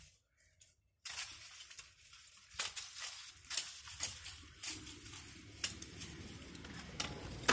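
Nylon net rubbing and brushing against the recording phone, giving irregular rustles and sharp clicks that start about a second in.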